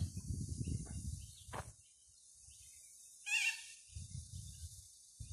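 Footsteps on a dirt track with low rumble, under a steady high hiss, and one short bird call about three seconds in.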